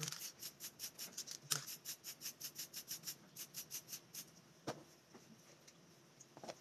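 Aerosol spray paint can in use: a quick, regular series of short pulses, about five a second, for about four seconds, then two more single pulses and a quiet stretch near the end.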